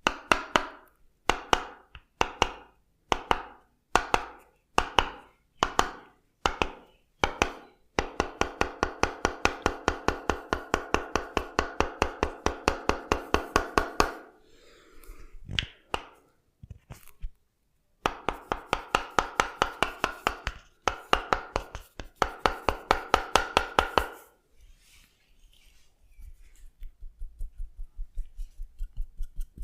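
Percussive massage tapping: a series of separate strikes about one a second, then two runs of rapid, even strikes at about four to five a second with a short pause between them, and softer taps near the end.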